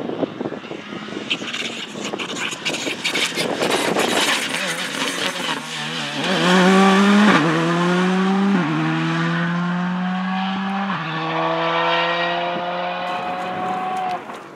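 Rally car accelerating hard: a crackling, noisy approach, then the engine pulls through the gears, its pitch climbing and dropping back at three upshifts. The engine sound falls away sharply just before the end.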